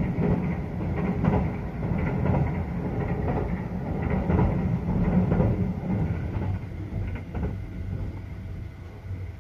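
Running noise of a JR 285 series sleeper train heard from inside the carriage as it crosses a river bridge: a loud, dense rumble and rattle of wheels on rails, quieter over the last few seconds.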